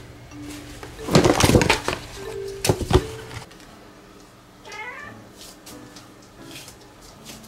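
Large paper bag crinkling and rustling loudly as a cat thrashes about in it, in two bursts, then a short cat meow about five seconds in. Soft background music underneath.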